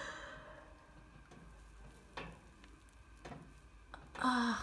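A few faint, scattered clicks and taps around the oven as the metal cake tin and rack are handled, with a brief hum of a voice near the end.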